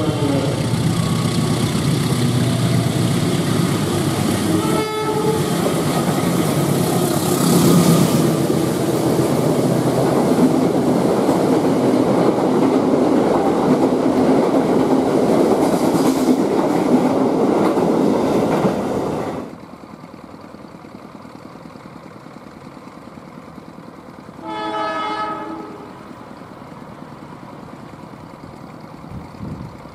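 Diesel-hauled passenger train passing close by, its wheels clattering over the rail joints, with a short horn toot about five seconds in. After a sudden drop in level, a quieter, more distant train sounds its multi-tone horn for about a second.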